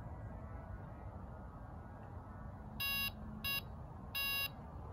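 Electronic bite alarm on a carp rod pod giving three short beeps, the sign of line being pulled through the alarm as a fish takes the bait.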